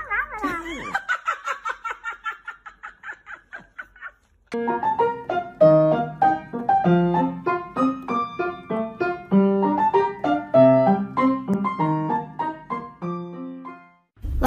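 A pug's high, pulsing whine that fades out over the first four seconds. After a brief gap, solo piano music plays through the rest.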